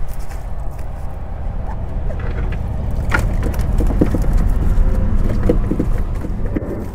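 A cast net is hauled over the side of a boat and dropped onto the deck, with wet knocks and slaps as the net and a load of armored catfish land and flop. This comes in a cluster from about three seconds in, over a steady low rumble.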